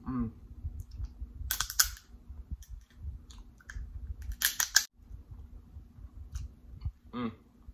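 Close-miked eating of snow crab legs: two loud crackling bursts, about a second and a half and about four and a half seconds in, as the shell is bitten, with soft chewing noises between. A short closed-mouth hum comes near the start and another near the end.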